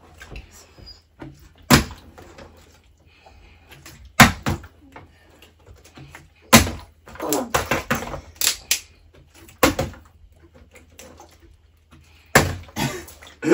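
A flipped plastic bottle landing on a hard surface: five sharp knocks, a few seconds apart.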